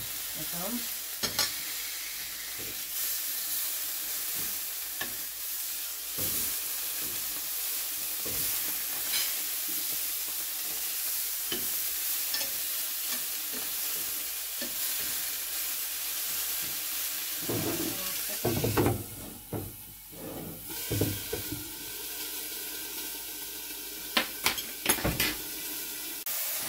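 Pork chops and sausages sizzling steadily in a frying pan, with light clicks and scrapes of a utensil moving them. Louder clatters of utensil against pan come about two-thirds of the way through and again near the end, and the sizzle drops off briefly between them.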